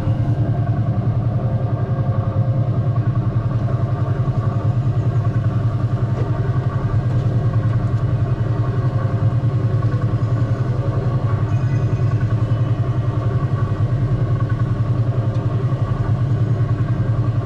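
Small engine of a track-guided ride car running steadily, a fast, even throbbing hum.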